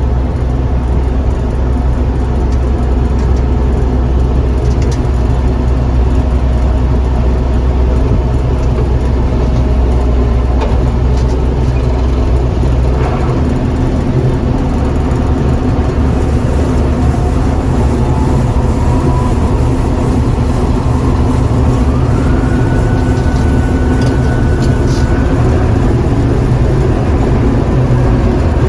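John Deere 4400 combine running steadily as it harvests soybeans, its engine and threshing machinery humming. About two-thirds of the way through, a whine rises in pitch and then holds steady.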